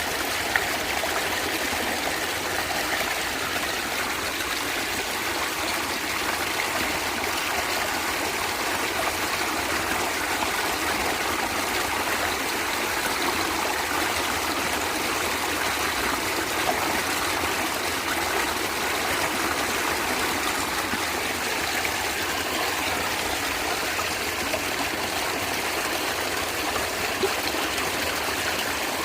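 Small stream of water running and gurgling over stones, a steady trickling rush without letup.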